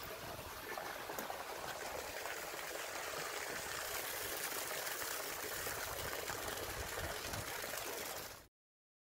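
Steady rush of running water, cutting off abruptly near the end.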